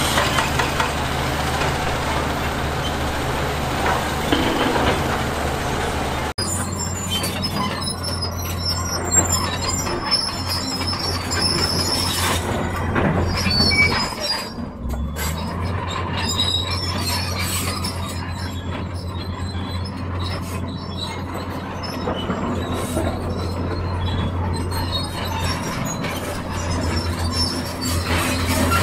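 Diesel engines of crawler excavators and a dump truck running under load, a steady low drone, while rock is dug and loaded, with scattered clanks and high-pitched metallic squeaks. The engine sound changes abruptly about six seconds in.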